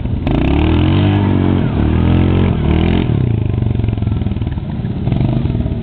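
ATV engine revving up and down in repeated surges while the quad spins donuts, its pitch rising and falling several times.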